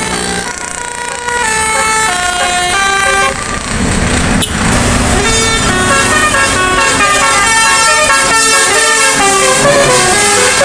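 A bus's 'telolet basuri' musical air horn playing a tune of short stepped notes, one note after another. About four seconds in, a low engine rumble joins under the melody, with one sharp click just after.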